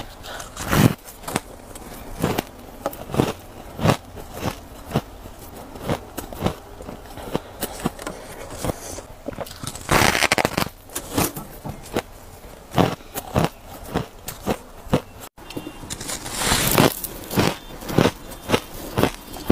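Close-up bites and chewing of refrozen shaved ice: sharp crunches about one or two a second, with louder bites about a second in, about ten seconds in and around seventeen seconds in. The sound breaks off for an instant near fifteen seconds.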